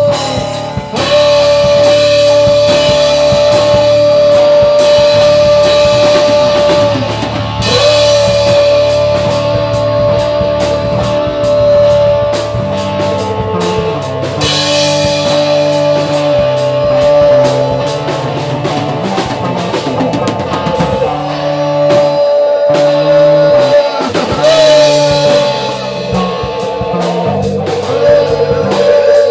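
Rock band jamming with two electric guitars, bass and a drum kit: a series of long held high notes, each about five or six seconds, over a shifting bass line and steady drums.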